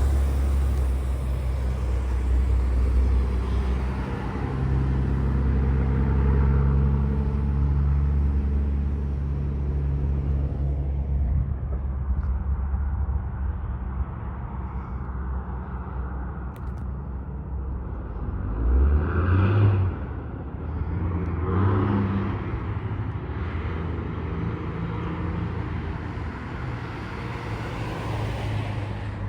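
Road vehicles passing: a low engine drone fades away over the first half. About two-thirds of the way in, an engine's note rises as a vehicle accelerates past, with a second, smaller swell a couple of seconds later.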